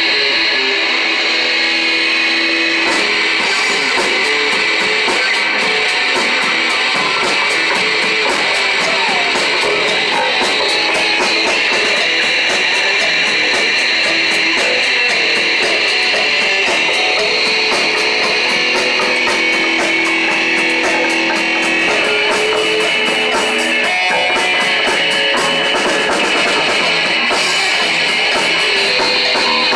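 Live rock band playing: electric guitar over bass guitar and drum kit, loud and continuous, with a steady cymbal-like beat that drops out briefly near the end.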